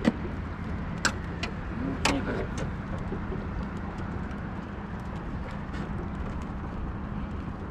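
Steady low outdoor rumble with a faint hum, with a couple of sharp knocks about one and two seconds in.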